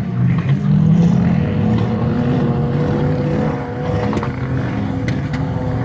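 Several 4x4 engines running hard as vehicles climb a steep sand dune, their notes wavering up and down with one engine holding a steady high note from about a second in.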